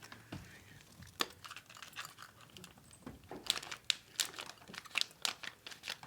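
A cat eating from its food bowl: irregular small chewing clicks and crunches, a few a second, getting busier about halfway through.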